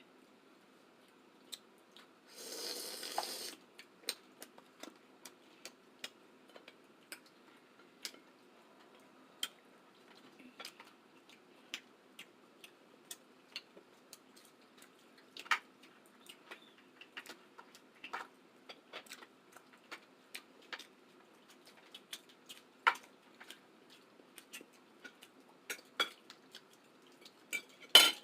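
Seafood boil being eaten by hand: scattered sharp clicks, cracks and clatter of food, cutlery and dishes. There is a short rustling burst about three seconds in and a loud crack right at the end.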